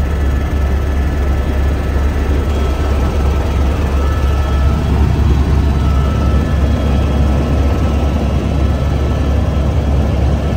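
Helicopter in flight heard from inside the cabin: a loud, steady low drone of rotor and turbine under an even rush of air, with faint steady high whines.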